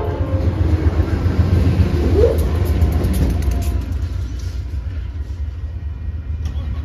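GE B40-8 diesel locomotives approaching, their engines running with a steady low rumble; the last of a horn blast cuts off right at the start.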